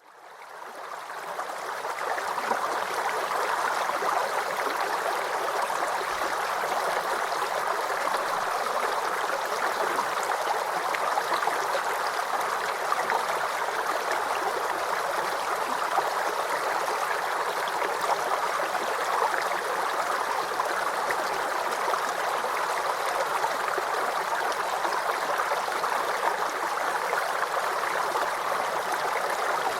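Water of a small stream flowing and gurgling over stones in a steady rush, fading in over the first couple of seconds.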